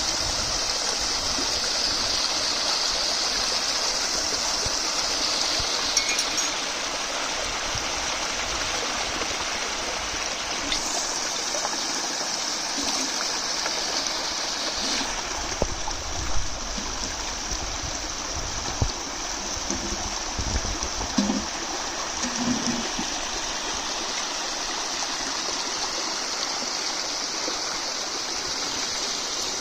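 Mountain stream water flowing steadily, with a few light knocks about halfway through.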